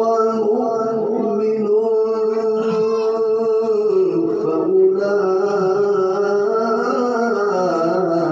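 A man reciting the Quran in a melodic tilawah style through a microphone, holding one long note for about four seconds, then dropping lower and starting a new phrase with wavering ornaments.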